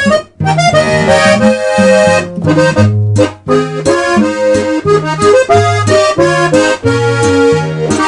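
Accordion music: a melody and chords over a bass that swings between two low notes about twice a second, with short breaks about a third of a second in and just after three seconds.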